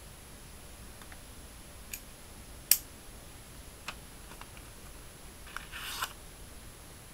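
Folding knife handled: a sharp metallic snap as it opens, with a few lighter clicks around it, then about half a second of paper crackling near the end.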